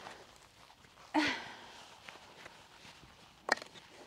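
Footsteps on artificial grass and light handling of firewood by a brick fire pit, with a brief voice sound about a second in and a sharp knock near the end.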